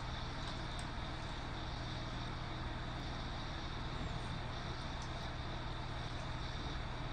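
Steady room noise: a constant low hum with a hiss over it, with a couple of faint ticks about three and five seconds in.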